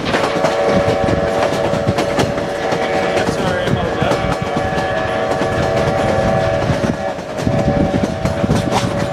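Durango and Silverton narrow-gauge steam locomotive's chime whistle blowing a long blast of several notes, a brief break, then another blast, over the clatter of the coaches' wheels on the rail joints.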